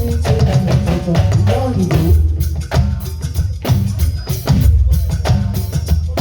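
Live band playing an instrumental stretch: drums and percussion keep a steady beat over a bass line, with a melodic instrumental line in the first couple of seconds.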